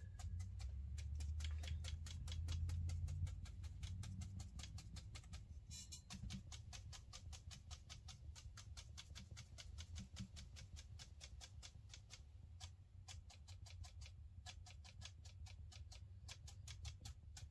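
Faint tapping of a splayed bristle brush stippling watercolour paint onto paper to build tree foliage, short soft taps at about five a second.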